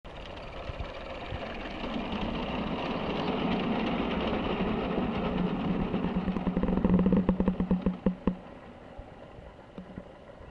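G-gauge garden-railway train running through a wooden covered bridge: a rumble with a steady low hum that grows louder, with a quick run of clicks as it passes, then drops away sharply about eight seconds in.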